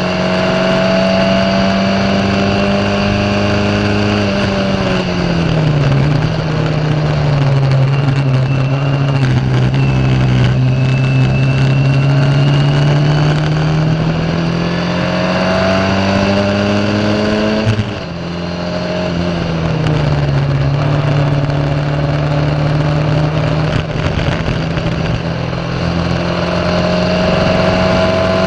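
Ford Kent 1.6-litre four-cylinder engine of a Formula Ford 1600 race car at high revs under load, heard onboard. The revs sag twice, about five seconds in and again after a brief knock near eighteen seconds, and climb steadily back in between.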